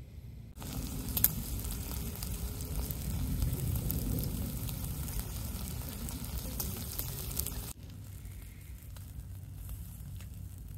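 Marinated meat sizzling on a small grill over glowing charcoal, with sharp crackles and pops. The sizzle starts abruptly about half a second in and falls to a quieter hiss about three-quarters of the way through.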